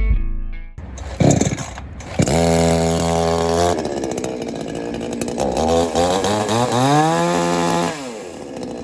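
KASKAD CS-505 petrol chainsaw's two-stroke engine firing up about a second in, then running with its pitch rising and falling as the throttle is blipped, with one longer rev up and back down before it drops away near the end.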